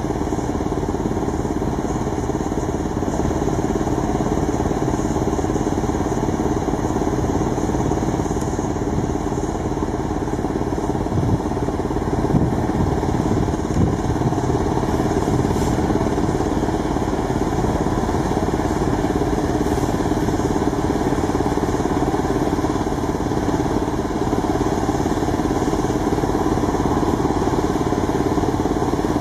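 A large engine running steadily at an even speed, with no revving.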